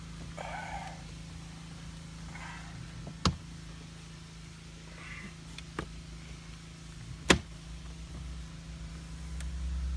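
Plastic dash trim panel of a Gen6 Camaro being worked back into place by hand: short rustling scrapes, then three sharp clicks, the loudest about seven seconds in, as its clips snap home. A steady low hum runs underneath.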